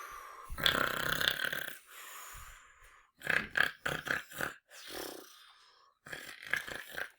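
A person imitating snoring aloud: several loud, rasping snore sounds with gaps between them.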